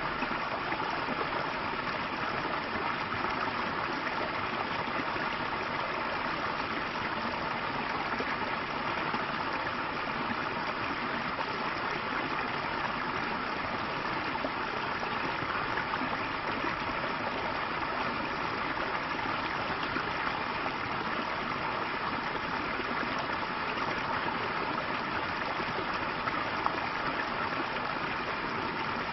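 Water of a small stream flowing steadily, an even, unbroken sound with no change throughout.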